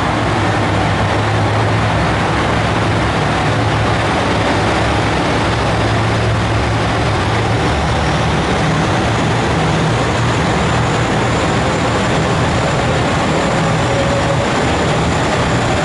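Diesel railcars idling at a station platform: a steady low engine drone with a broad rumble, and a faint high whine joining about halfway through.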